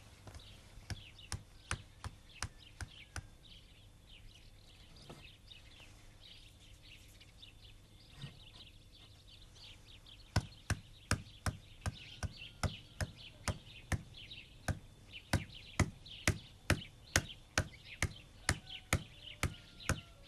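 Wooden pestle pounding in a mortar, a steady run of dull knocks. The knocks are faint and uneven at first, then louder and regular at about two strokes a second from about ten seconds in. Birds chirp faintly throughout.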